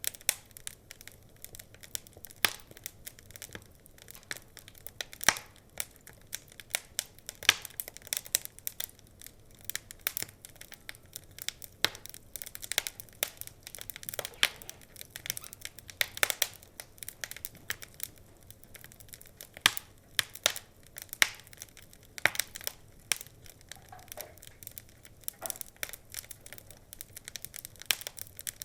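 Wood fire burning in a fireplace, crackling with frequent irregular sharp pops and snaps over a faint hiss.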